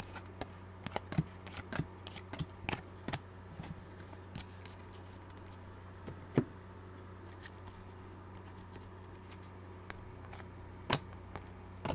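Trading cards being flipped and slid through the hands: quick crisp clicks and snaps of card stock, many in the first few seconds, then sparser, with a louder snap about six seconds in and another near the end. A steady low hum runs underneath.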